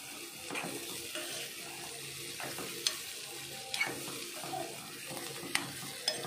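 Chopped cluster beans sizzling in hot oil in a kadai as a metal spoon stirs them, the spoon clicking and scraping against the pan several times.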